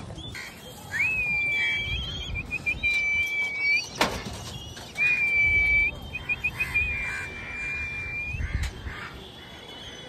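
A person whistling to call kites in to be fed: two long, steady high notes, each broken by a quick run of short chirps. A sharp click sounds about four seconds in, with wind rumbling on the microphone.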